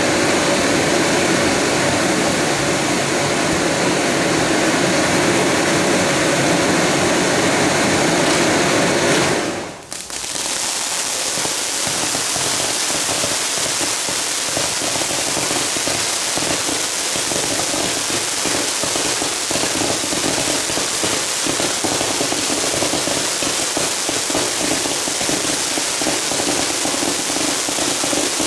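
Karakuri set-piece fireworks burning with a dense rushing hiss. After a brief drop about ten seconds in, a steady, dense crackle of many small firework bursts.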